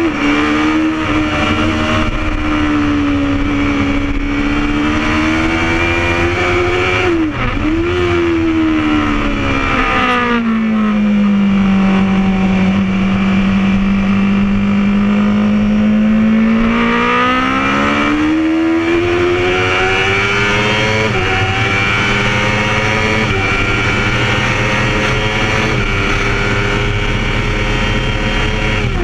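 Honda CBR1000RR Fireblade's inline-four engine under load, heard from on the bike at speed. The engine note dips briefly about seven seconds in, falls and holds low through a long corner, then climbs again as the bike accelerates onto the straight.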